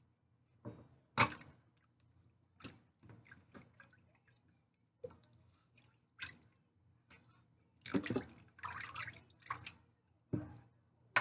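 Water splashing and dripping as a raw whole chicken is handled in a sink of water: scattered short splashes, with a longer stretch of splashing about eight seconds in.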